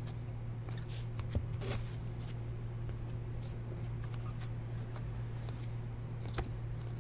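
Topps Chrome baseball cards being sorted by hand, with soft slides and flicks of the glossy card stock and a few faint clicks, over a steady low hum.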